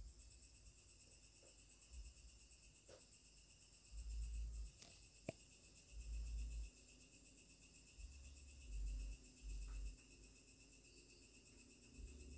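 Insect chorus, a high-pitched steady trill with a fast, even pulse. Several short low rumbles come and go over it, and there is a single sharp click about five seconds in.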